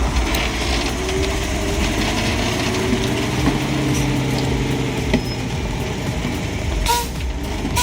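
Heavy logging truck's engine running steadily, with a few knocks and clicks and a short squeak about seven seconds in.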